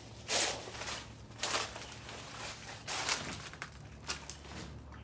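Footsteps of a person walking, a handful of irregular scuffing steps over a gritty floor, under a faint low hum.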